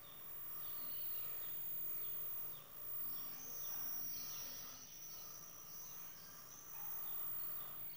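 Faint outdoor ambience of birds and insects: repeated short, falling chirps, with a high, steady trill from about three to seven seconds in.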